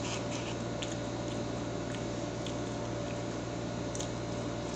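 Air conditioner running with a steady, very noisy hum and hiss, with a few faint clicks over it.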